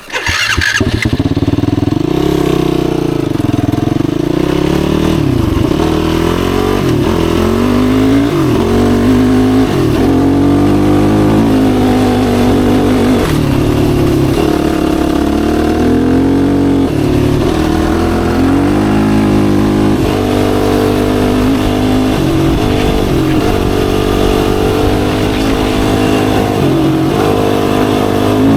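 Yamaha YFZ450R's single-cylinder four-stroke engine under way, revving up and easing off again and again as the ATV is ridden.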